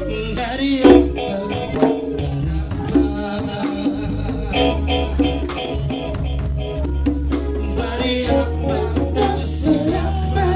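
A live band playing: bass guitar holding a steady low line under a drum kit and hand percussion.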